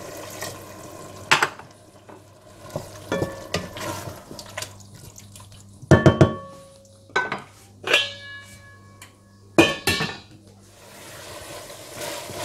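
Metal cookware clinking and knocking: a series of sharp knocks that ring briefly, the loudest about six, eight and ten seconds in.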